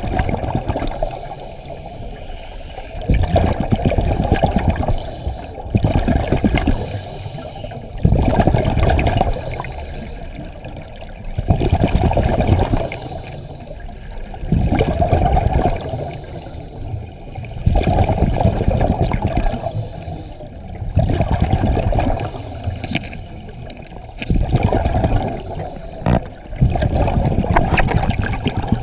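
Exhaled air bubbling out of a scuba regulator, heard underwater: a burst of bubbles lasting a second or so about every three seconds, with a steady low water noise between.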